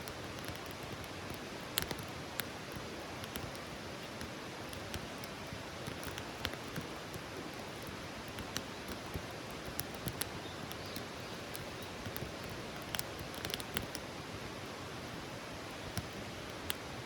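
Wood campfire crackling: a steady hiss with irregular sharp pops and snaps scattered throughout.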